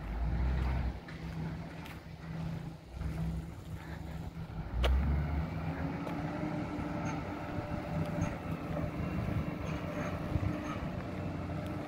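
Diesel engine of a container reach stacker running, its pitch rising slightly as it revs up about five seconds in. There is a single sharp knock at that moment, and gusts of wind buffet the microphone.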